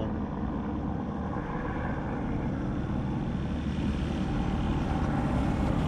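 Helicopter circling overhead, its rotor and engine giving a steady low drone that grows gradually louder.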